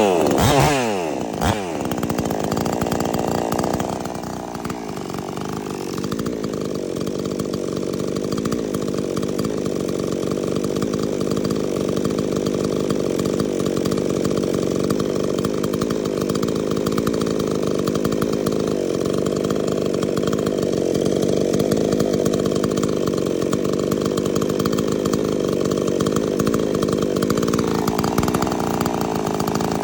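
PROYAMA 62cc two-stroke gas chainsaw engine running. Its pitch drops quickly in the first second or so as the throttle comes off, then it runs steadily.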